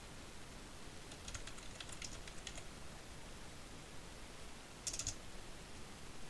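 Computer keyboard typing: a run of key clicks a little over a second in, then a short quick burst of keystrokes near the end, over faint hiss.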